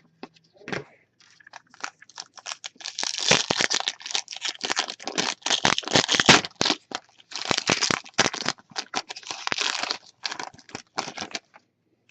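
Foil trading-card pack wrapper crinkling and tearing as it is handled and opened, a dense run of rapid crackles and rustles that thins out near the end.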